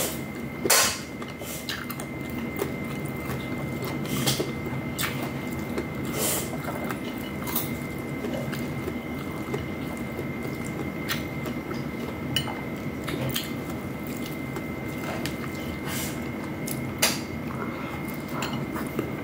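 Close-up eating sounds: wet chewing and mouth sounds with scattered light clicks and taps as fingers pick rice and fried pork from a plate, over a faint steady hum.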